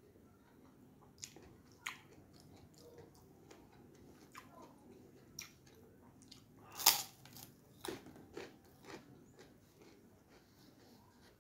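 Close-up eating sounds: chewing and small mouth clicks, with one loud crunch about seven seconds in as a crispy fried cracker (kerupuk) is bitten. A few smaller crunches follow over the next two seconds.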